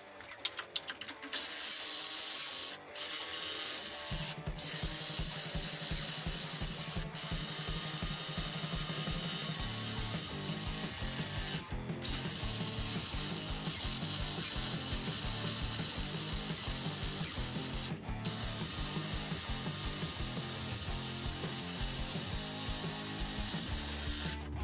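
DeWalt half-inch high-torque cordless impact wrench hammering a 2-inch nut in and out on the 1-1/4-inch bolt of a Skidmore-Wilhelm bolt tension tester, warming the nut and bolt up before testing. It starts with a few stuttering blows, then hammers steadily with five brief breaks.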